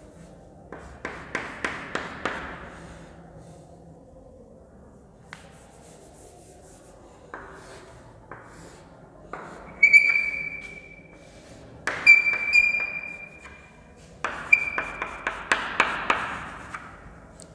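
Chalk drawing on a chalkboard: scraping strokes and taps, with a high squeak from the chalk three times in the second half. Near the end comes a quick run of short strokes as a hashed bond is drawn.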